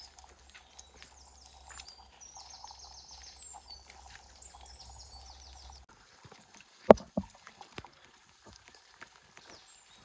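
Small birds singing in woodland: high trills and quick descending whistles over a faint low hum, which stops suddenly about six seconds in. About seven seconds in, two sharp knocks close to the microphone, the first much the loudest sound, then only faint scattered clicks.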